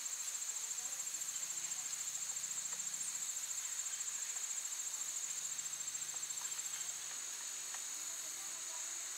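Insects trilling in a high pitch, a fast pulsing trill that turns into a steadier buzz about seven seconds in.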